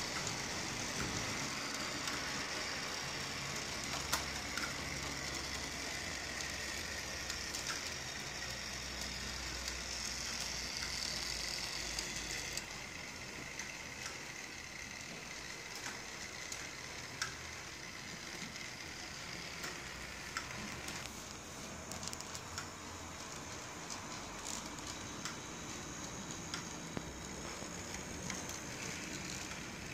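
Model streetcars running on a layout under DCC control: small electric motors whining steadily, with a crackly hiss from wheels and trolley poles on track and wire, and scattered sharp clicks. The sound shifts in character about twelve seconds in and again around twenty seconds in.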